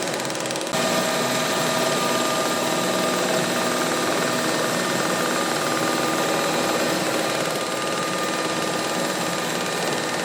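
Welding-electrode making machinery running: a steady mechanical clatter with several steady hums over it, the mix changing abruptly less than a second in.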